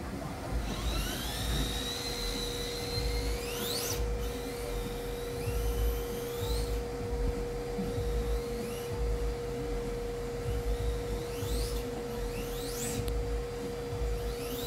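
Electric motor of a rear-wheel-drive 1/10-scale RC drift car (Yokomo YD-2SXII) whining, the pitch climbing steeply with each burst of throttle, about five times, over a steady hum.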